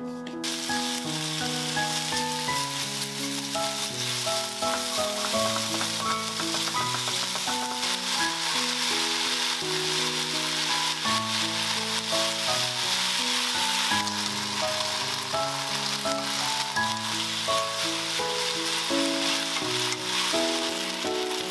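Meat and green peppers sizzling steadily in a hot frying pan, stirred with chopsticks, over soft background music.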